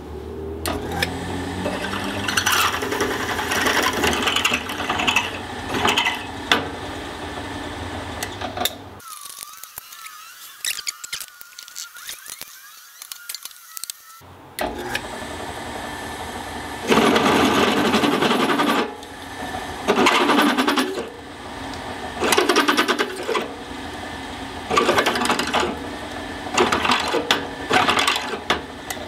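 Benchtop drill press running, its twist bit cutting into a metal part held in a drill-press vise and lubricated with cutting oil. The cutting goes on steadily at first, breaks off for about five seconds in the middle, then comes back in repeated bursts about a second long as the bit is fed in and backed out.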